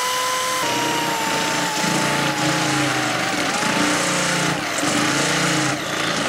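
Electric drill with a step bit cutting through the sheet-steel top of an electrical panel to enlarge a knockout to 3/4 inch. The motor runs with a steady whine that drops in pitch as the bit bites, about half a second in. The pitch wavers under load as the bit cuts, and the drill stops shortly before the end.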